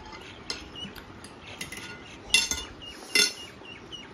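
Metal forks clinking and scraping against plates while eating, with two loud, ringing clinks a little under a second apart past the middle.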